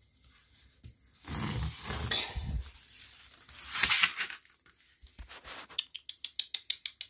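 A puppy chewing and worrying a plush toy: rustling and scuffing of fabric, then a quick run of sharp clicks, about seven a second, near the end.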